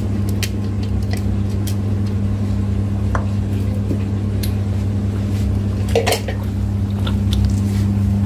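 Small clicks and scrapes of a glass bowl and hand against a non-stick pan as chopped masala is tipped onto raw chicken and mixed in by hand, with a sharper clatter about six seconds in. A steady low hum runs underneath and is the loudest part.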